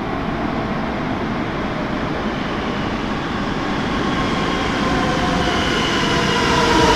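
Madrid Metro Series 9000 train approaching through the tunnel and running into the station. Its rumble grows steadily louder, and near the end a whine of several tones comes in, falling slightly in pitch.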